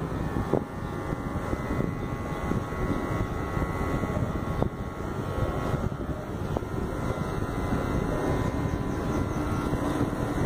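Cordless PRO LIZZE hair clipper running steadily as it edges the hairline at the nape.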